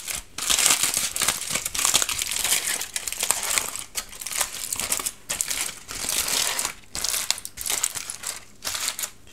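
Aluminium foil crinkling as gloved hands peel open and unfold a foil wrap, in a continuous run of rustles broken by short pauses.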